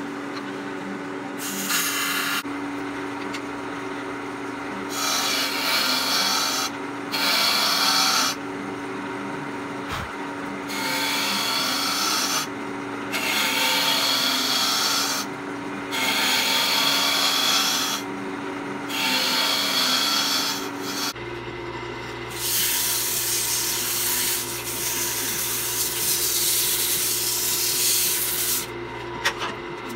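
Wood lathe spinning an oak bowl blank with a steady hum, as a turning tool takes repeated cuts of a second or two each. About two-thirds of the way through, the cutting gives way to sandpaper held against the spinning bowl, a steady hiss.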